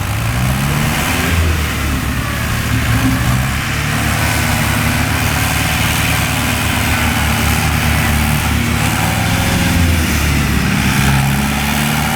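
Force tractor's diesel engine running steadily as the front loader works, revving up just after the start and again near the end.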